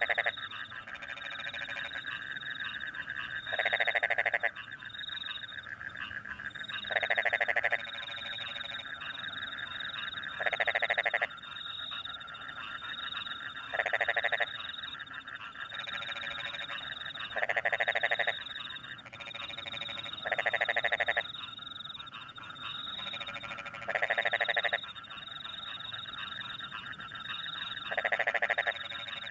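Frogs in a rice paddy after rain: one loud, rapidly pulsed croak about a second long repeats roughly every three and a half seconds over a steady chorus of frogs and crickets.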